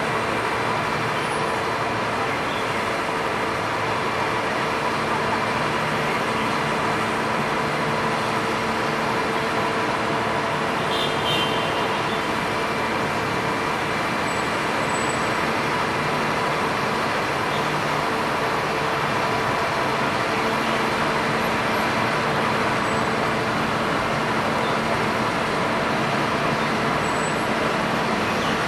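Steady road traffic noise, engines running in slow traffic, with a steady low hum under it. A brief faint high-pitched squeak about eleven seconds in.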